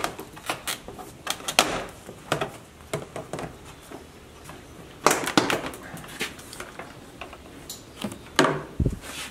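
Plastic door sill trim of a 2018 Chevy Silverado being pulled off by hand: a series of clicks, snaps and knocks from the trim clips and panel, with louder clusters about halfway through and near the end.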